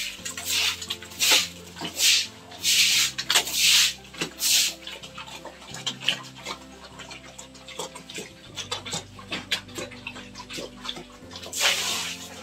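A pig eating wet coconut-pulp mash from a concrete trough: wet slurping and chomping in quick bursts, busiest in the first five seconds and again near the end.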